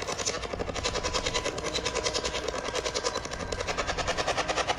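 Spirit box in its fast record-mode sweep, stepping rapidly through radio channels: a steady stream of chopped radio static at about eight pulses a second.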